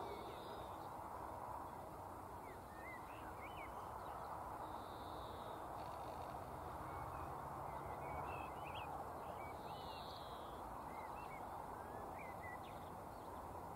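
Faint outdoor ambience: scattered short bird chirps and calls over a steady low background hiss.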